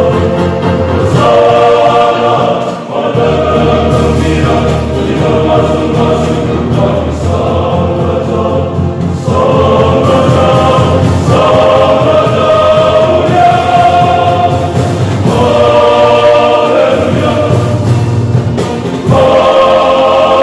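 Male choir singing a sacred song in phrases of several seconds, with short breaks between them, over a steady low keyboard accompaniment.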